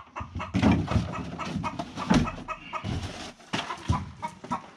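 Chickens clucking, mixed with knocks and scrapes as a wooden hutch is shifted on a pickup truck's bed liner.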